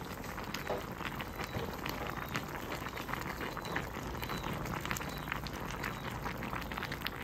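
A pot of fish braised in fermented fish sauce (mắm kho), bubbling steadily on the stove with a dense patter of small pops.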